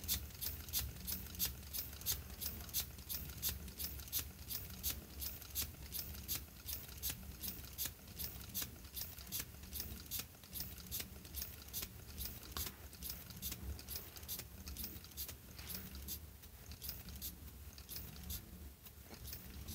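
Lego Technic pneumatic air engine running on compressed air, its cylinder and valve giving a sharp puff-click of air on each stroke, about two to three a second. The strokes slow and fade over the last few seconds as the air tank's pressure runs down.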